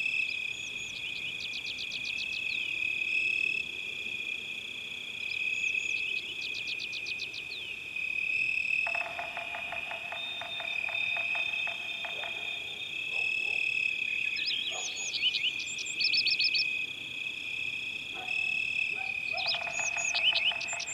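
Forest wildlife chorus: a steady, high-pitched trilling drone with short runs of bird chirps over it, and two rapid pulsed trills of a few seconds each, the first about nine seconds in and the second near the end.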